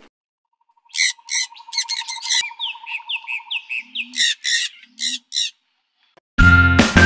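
Macaws squawking: a run of short, harsh calls, mixed with a fast trilling note and a few falling whistles. Music comes in near the end.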